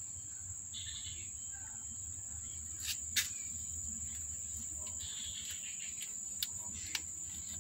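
Steady high-pitched insect trill, like a cricket, over a low background hum, with a few faint clicks.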